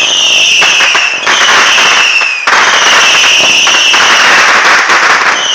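Fireworks going off: a loud whistle, falling slightly in pitch, repeats about every two and a half seconds over a steady crackling hiss.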